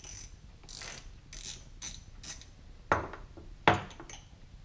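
Hand ratchet clicking in short bursts as it backs out the long through-bolts of a Minn Kota trolling motor's motor housing. Two sharp knocks follow about three and three and a half seconds in, the second the louder.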